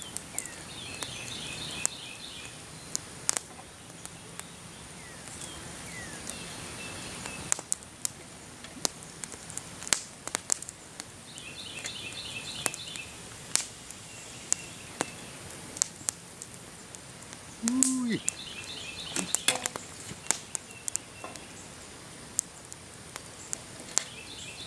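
Scattered sharp clicks and taps from a crackling wood campfire and a wooden stick working in a metal coffee-can pot as boiled crawdads are lifted out. A songbird repeats a short trilled phrase in the background about four times.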